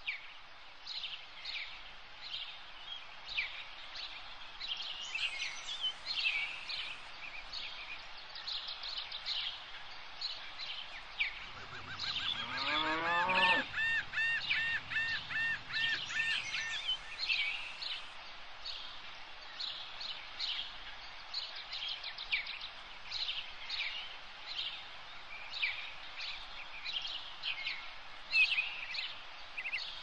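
Birds chirping over a steady outdoor hiss, with short, high, downward-sliding chirps repeating throughout. From about twelve to seventeen seconds in, a louder tone climbs steeply in pitch and then warbles high, with a low rumble beneath it.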